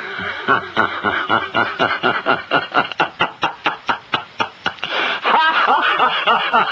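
A man laughing in a long run of short, rhythmic "ha" pulses, about four or five a second: a deliberate, put-on laugh.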